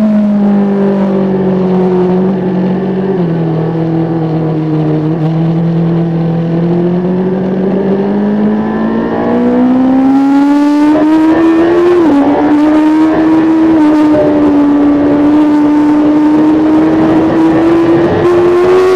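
A 2005 Kawasaki ZX-10R's inline four-cylinder engine heard on board. It holds low revs through a long bend, then revs up hard on the way out, with one quick upshift about twelve seconds in before climbing again under full acceleration. Wind rush grows as the speed rises.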